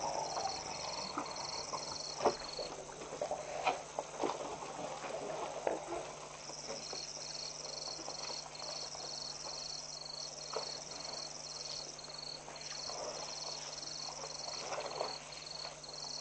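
Ambient sound of a herd of African elephants drinking at a waterhole: scattered scuffs, knocks and splashes from the animals at the muddy edge. Over them runs a high-pitched chirping that pulses about three times a second in repeating runs.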